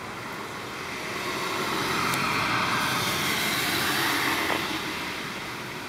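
Noise of a passing vehicle, swelling over the first two seconds, holding, then fading away near the end.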